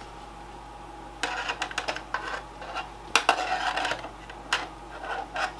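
Metallic clicks and rattles of computer parts being handled inside a desktop PC case, in several short clusters.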